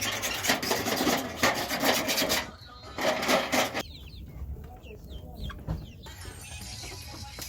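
Loud rasping, rubbing noises in two bursts, the first running about two and a half seconds and the second under a second. Between and after them, chickens make faint clucks and short chirps.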